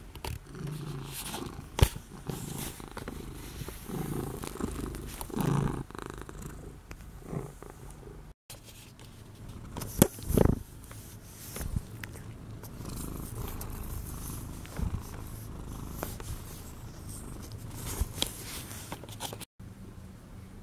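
Domestic cat purring close to the microphone while being scratched under the chin, with fur rubbing against the camera and a few sharp knocks, the loudest about two seconds in and about ten seconds in.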